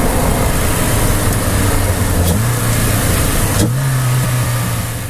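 Inside the cabin of a Renault Clio 172 Cup with a decat and cat-back exhaust: its 2.0-litre four-cylinder engine runs at steady revs under loud wind and road noise. The engine note steps up slightly about two seconds in and again about three and a half seconds in, where the wind noise drops, and the sound fades out at the end.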